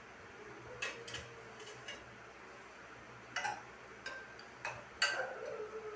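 Light knocks and clinks of kitchen utensils and a mixer jar being handled, as milk is put into the jar. About eight separate taps, some with a short ring, the loudest about five seconds in.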